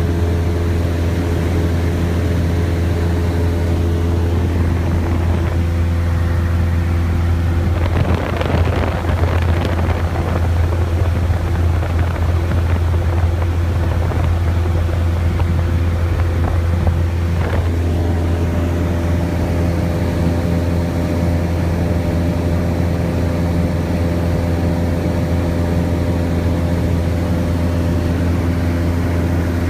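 Single-engine light aircraft's piston engine and propeller droning steadily, heard inside the cabin. From about eight seconds in to about seventeen seconds a noisy hiss rises over the drone, then the steady engine tone returns.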